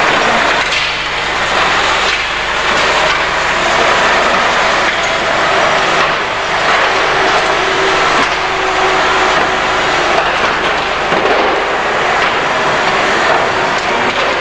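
Police water cannon truck spraying its water jet while it drives: a loud, steady rushing hiss over the truck's engine running.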